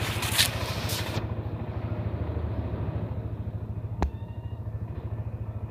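Yamaha NMAX scooter's single-cylinder engine idling steadily with a rapid, even pulse. A brief rush of noise fades in the first second, and there is one sharp click about four seconds in.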